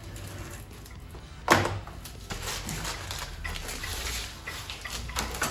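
A package being opened by hand: a sharp snap about a second and a half in, then irregular rustling and small clicks of the packaging being handled.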